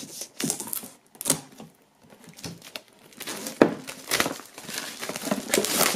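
Plastic shrink-wrap foil crinkling and tearing as it is slit open with a knife and pulled off a cardboard box, in irregular rustling bursts that grow busier in the second half.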